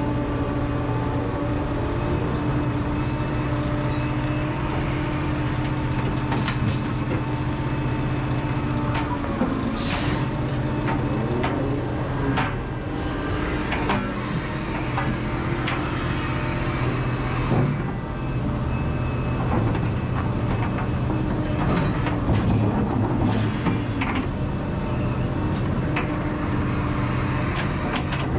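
Liebherr R976 crawler excavator's diesel engine running steadily under hydraulic load, its pitch shifting as the boom and bucket move. A handful of sharp knocks come through the middle as the bucket handles soil.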